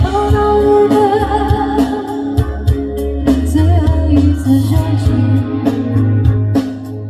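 Live rock band: a woman sings long held notes over electric guitars, bass guitar and drums.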